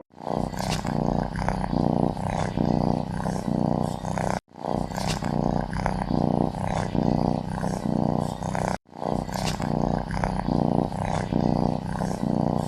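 Loud, rough snoring: a recording of about four seconds played three times over, each pass cut off abruptly.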